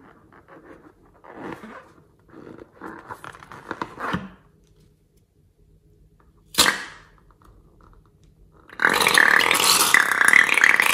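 A slime-filled rubber balloon being handled in short bursts, then a single sharp snip of small scissors cutting its neck about six and a half seconds in. Near the end comes the loudest sound, a two-second squelch as glitter slime is squeezed out through the cut neck.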